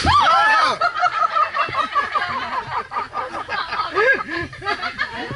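A thunder cracker, the kind of firecracker set off to drive wild elephants away, goes off, and its bang dies away within the first second. Birds then break into a run of loud squawking calls.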